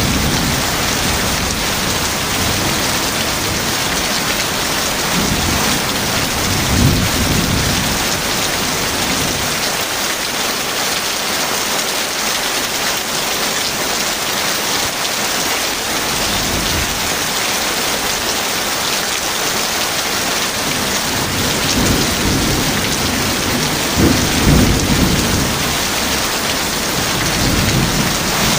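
Heavy rain falling steadily, with low rolls of thunder rumbling about a fifth of the way in and again, louder, near the end.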